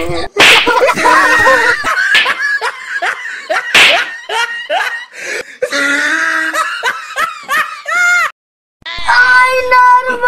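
Children laughing, shrieking and calling out over one another, with sharp smacks among the voices. The sound drops out briefly near the end, then a voice starts singing.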